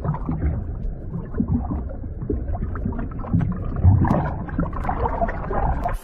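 Muffled underwater water sounds near the sea surface: low, irregular sloshing and bubbling, with nearly all of the sound down low and little treble.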